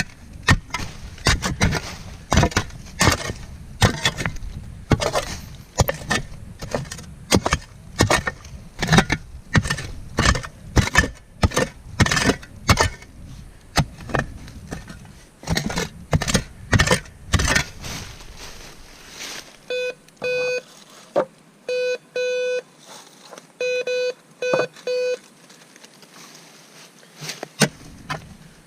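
Repeated knocks and scrapes of digging among rocks, then a metal detector giving a series of short, steady beeps, about eight in clusters: the signal of a buried metal target.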